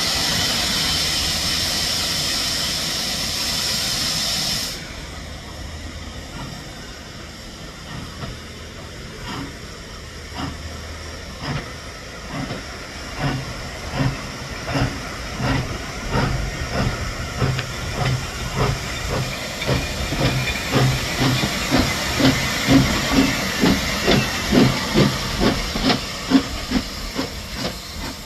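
Steam locomotive: a loud steady hiss of steam that cuts off suddenly after about five seconds, then the exhaust beats, slow at first and quickening and growing louder as the engine gets under way.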